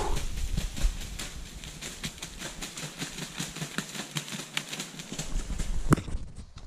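Footsteps crunching through dry leaf litter, a rapid run of small crackles, with one sharper snap, like a twig breaking underfoot, about six seconds in.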